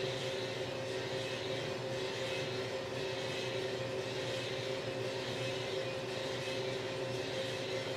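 Small drum coffee roaster running mid-roast: a steady mechanical hum from its drum motor and fan, holding two even tones over a hiss of air noise.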